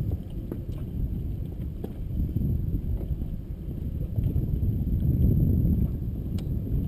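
Wind buffeting the camera microphone: a low, uneven noise that swells and fades, with a few faint clicks.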